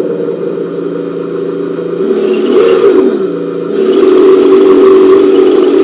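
Engine sound module on an MST MS-01D 1/10 RC drift car playing a simulated car engine through its small speaker: a steady idle, a quick blip up and back down in pitch about halfway through, then a louder steady note.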